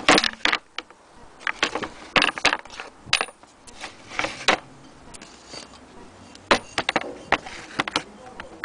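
Irregular sharp clicks, knocks and light clatter in uneven clusters: hands handling the wooden cabinet and open drawer of an antique hand-crank sewing machine, with small hard parts knocking against wood.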